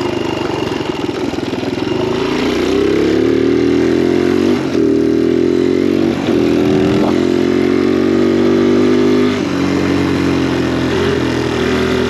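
Kawasaki KLX dirt bike's single-cylinder four-stroke engine running hard under way, its pitch climbing and dropping briefly three times as it changes gear.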